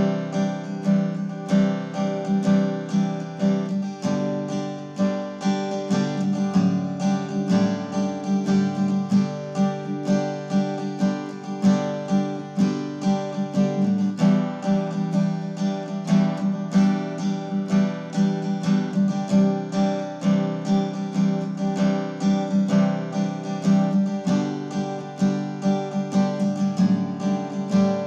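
Background music: acoustic guitar playing picked notes at a steady, even pace.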